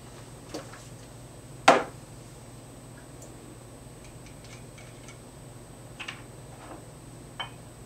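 A few scattered sharp knocks and clicks of small hard objects handled on a wooden desk, the loudest about two seconds in, over a low steady hum.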